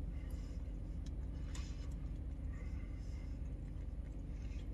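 Steady low hum of a truck heard from inside its cab, with a few faint clicks and the rustle of a paper sandwich wrapper.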